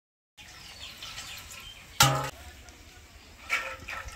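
Stainless steel utensils clanking: one loud, sharp clang that rings briefly about halfway through, then a lighter clink about a second and a half later.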